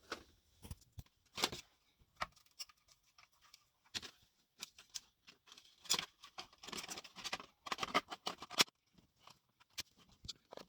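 Scattered clicks, taps and rustles of a plastic RC buggy body being handled and fitted onto its chassis, with a run of quick clicks from about six to eight and a half seconds in.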